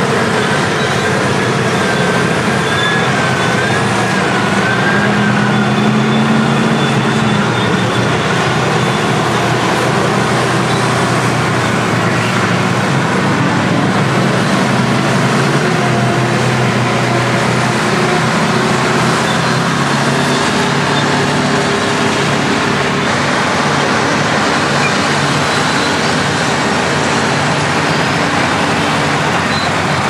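Several big diesel engines of vintage crawler bulldozers and motor scrapers working together under load: a loud, steady drone whose engine notes rise and fall, with a thin wavering whine a few seconds in.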